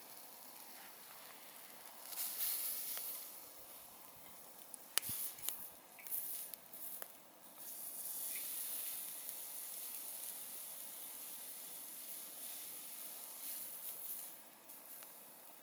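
Wood campfire burning: short hissing swells and a sharp crackle about five seconds in, then a steady hiss lasting several seconds.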